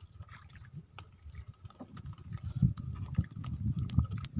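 A handline being hauled into a small wooden outrigger boat by hand: irregular light clicks and knocks over a low rumble that grows louder about halfway through.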